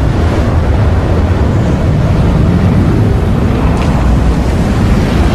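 Film sound effect of a nuclear blast over the sea: a loud, steady rumble of wind-like noise with a heavy deep bass.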